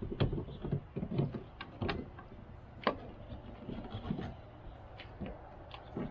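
Hand-work noise at a pickup truck's door: irregular knocks, clicks and rubbing as parts are handled against the door panel.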